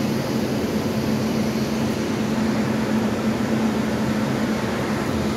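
A steady mechanical hum under a constant rushing noise, unchanging in level.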